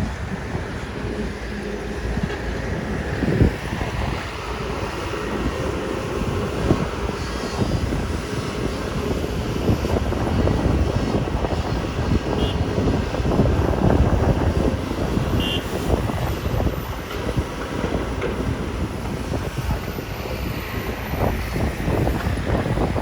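Kobelco SK250 hydraulic excavator engine running under load while digging and loading soil, a steady diesel drone with the odd knock of the bucket.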